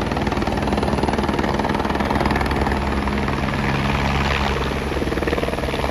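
A helicopter coming in to land: steady turbine and rotor noise with a rapid, even beat of the blades.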